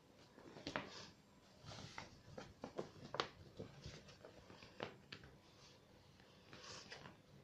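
Faint crinkling and rustling of a sheet of white paper being folded and creased by hand: a scatter of short, sharp crackles, the loudest about three seconds in, and a brief rustle near the end.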